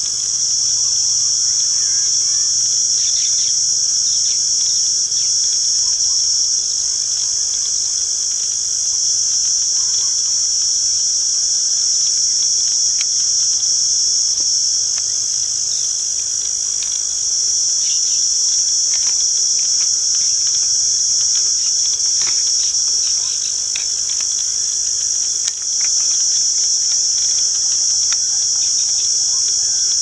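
Steady, shrill insect chorus: a continuous high-pitched drone that eases slightly now and then.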